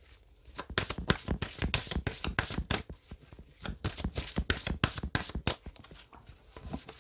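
Oracle card deck being shuffled by hand: a fast, irregular run of card clicks and flicks with short pauses.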